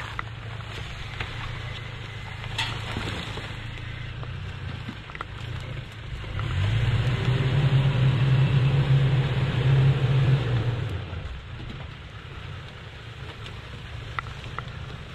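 Toyota Tacoma pickup's engine running at low revs as the truck crawls down a steep muddy slide in four-wheel-drive low range. About six and a half seconds in, the engine note rises and gets much louder, holds for about four seconds, then drops back. Scattered light clicks sound throughout.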